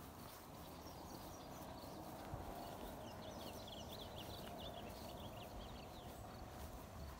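Faint outdoor ambience with a low wind rumble, and a small bird chirping in a quick run of short notes from about two and a half seconds in until near the end.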